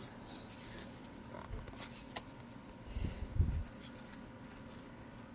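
Baseball cards being handled and flipped through: faint rustling with a few light clicks, and a soft low thud about three seconds in.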